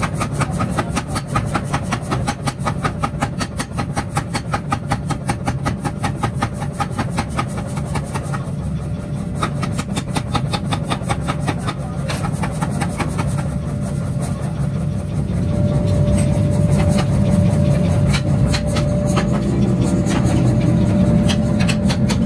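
Mechanical power hammer pounding a red-hot steel pickaxe blank in a fast, even stream of blows. About fifteen seconds in, the blows thin out under a louder, steady machine rumble with a constant whine.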